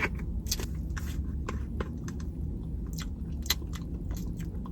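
Close mouth sounds of someone eating, chewing with irregular small clicks and smacks, over a steady low background hum.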